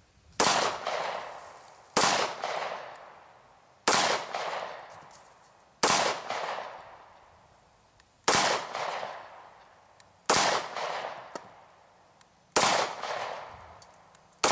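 Hi-Point C9 9mm pistol firing slow, aimed single shots, about one every two seconds: seven shots, with an eighth right at the end. Each shot has a short echoing tail.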